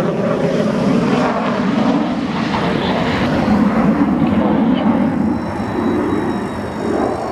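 F-16 fighter's single jet engine at takeoff power as the jet rolls down the runway close by: a loud, steady jet engine rumble.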